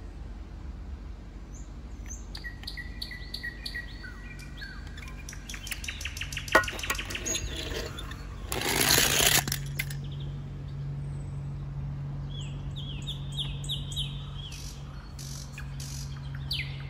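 Small birds chirping in series of short, quickly repeated high notes. A sharp click comes about six and a half seconds in, and a brief, loud rushing noise about nine seconds in.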